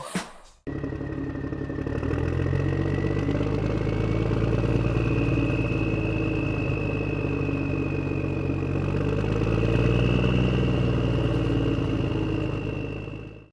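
Tractor engine sound effect running steadily, with a thin high whine over it. A short burst of noise comes at the very start, and the engine cuts off suddenly at the end.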